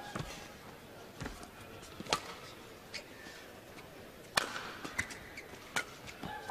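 Badminton rally: rackets striking the shuttlecock about once a second, the loudest a hard overhead hit about four and a half seconds in, with shoes squeaking on the court near the start and near the end.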